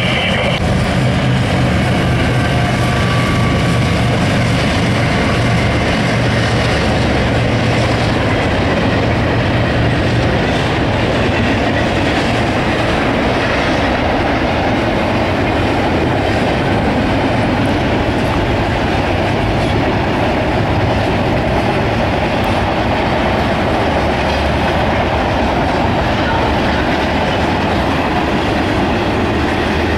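Diesel freight locomotives running past at speed, their steady engine drone giving way about ten seconds in to the continuous rumble and clickety-clack of double-stack container cars' wheels on the rails.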